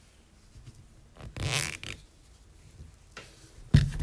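A rubber engine mounting foot being handled: a short rubbing scrape about a second and a half in, then two loud thuds near the end as it is set down on a paper-covered table.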